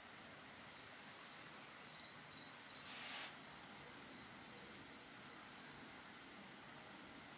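Cricket chirping in two short runs, three chirps about two seconds in and four more about a second later, over a steady faint hiss. A brief rustle falls between the two runs.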